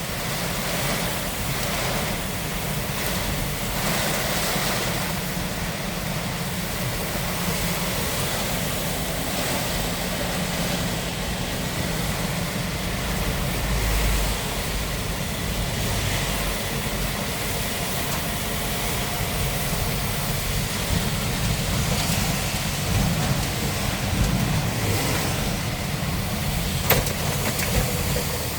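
Light truck on the move: steady engine drone and road noise, with a few brief clicks and knocks.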